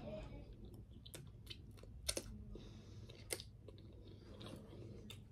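A person chewing a mouthful of food, with scattered wet mouth clicks and smacks; the loudest pair comes about two seconds in.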